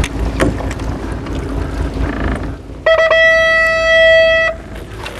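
Wind and boat noise on the open deck, with a few light clicks. About three seconds in, a loud, steady, single-pitched tone like a buzzer sounds for about a second and a half, then cuts off sharply.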